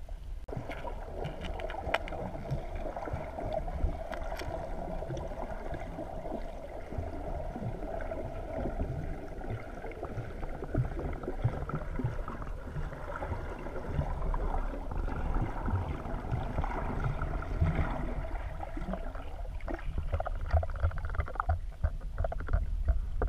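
Muffled sloshing and gurgling of lake water heard underwater through a waterproof camera's housing, with scattered clicks; the splashing and clicks grow busier near the end.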